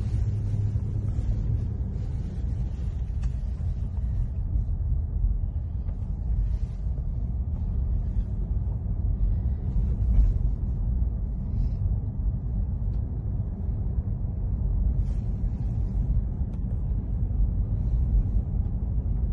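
Steady low rumble of a car driving along a street, heard from inside the cabin: engine and tyre noise.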